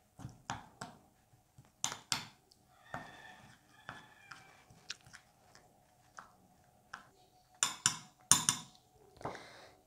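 Metal spoon clinking and scraping against a glass bowl while stirring a spice-and-oil marinade: scattered light clicks, with a few louder taps near the end.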